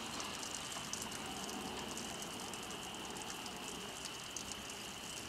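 Steady outdoor background noise with faint fine crackling and a thin, steady high-pitched tone running under it.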